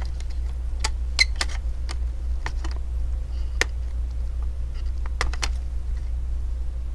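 Scattered small clicks and taps as a laptop's CPU fan cable is unplugged and the plastic fan is lifted out of the opened case, over a steady low hum.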